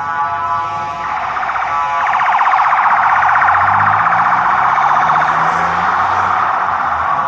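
A loud emergency alarm sounding. It starts as a steady buzzing tone and about a second in switches to a fast, trilling pulse.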